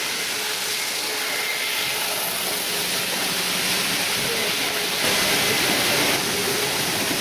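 N-scale model train (Tomix EF62/EF63 electric locomotives with passenger cars) running along the track: a steady rolling hiss with a faint whine, getting a little louder about five seconds in and easing off a second later.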